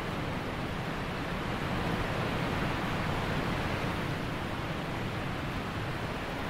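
A steady rushing noise, even and unbroken, swelling slightly about two seconds in.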